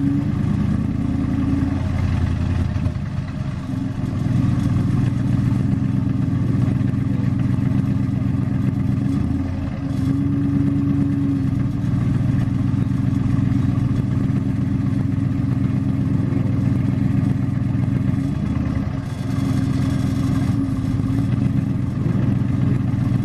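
Aston Martin Vantage GT4's V8 engine running at low revs, heard from inside the cabin as the car crawls along at walking pace. The engine note is steady, with a few brief dips.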